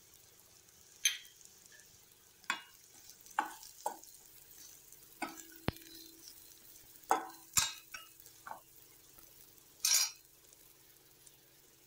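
Stainless steel slotted spatula scraping and knocking against a stainless steel kadai as shallots and turmeric are stirred in hot oil: about ten separate strokes, the longest scrape about ten seconds in, over a faint sizzle of frying.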